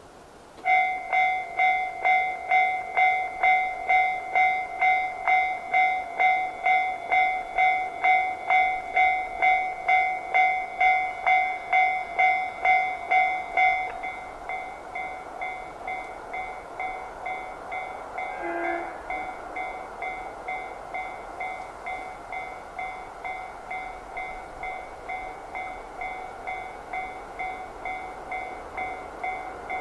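Japanese level-crossing alarm ringing, an electronic two-tone ding repeating about twice a second. It starts suddenly and drops to a quieter level about 14 seconds in, typical of a crossing alarm's volume reduction while the barrier stays down.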